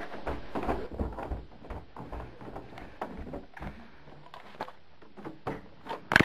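Footsteps and knocks from the handheld camera moving down a hallway, loudest in the first two seconds. About six seconds in comes a single sharp click, the loudest sound here, as the front door is unlatched and opened.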